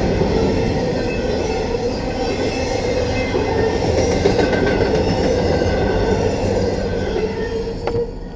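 Freight cars of a CSX manifest train rolling past a grade crossing: a steady rumble of steel wheels on rail, with thin high wheel squeal above it. It gets quieter near the end.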